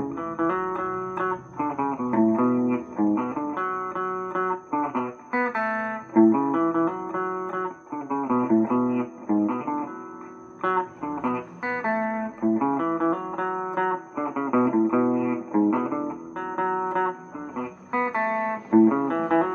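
Electric guitar playing a repeating groove of plucked chords and short note runs, the phrase coming round again about every six seconds.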